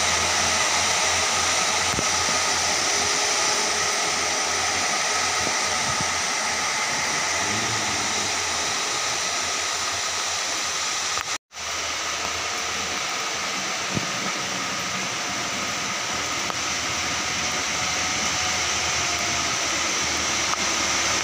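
Heavy rain falling on a wet road and roadside foliage, making a steady hiss. It breaks off for an instant about halfway through, then goes on unchanged.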